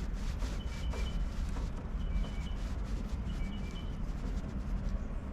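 Screws being worked out of the copper pipe attachment on a water heater's bypass valve, with three short squeaks a little over a second apart, over a steady low rumble.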